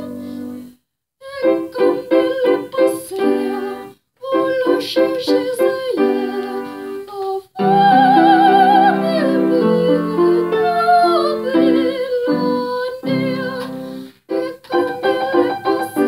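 A woman singing a classical French song in operatic style, with vibrato, over piano accompaniment playing short repeated chords. The sound cuts out completely for a moment a few times.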